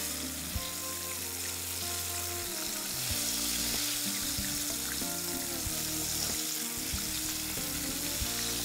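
Chicken wings frying in a pan of hot oil, a steady bubbling sizzle; the steady bubbling is the sign the wings are frying properly. Background music plays underneath.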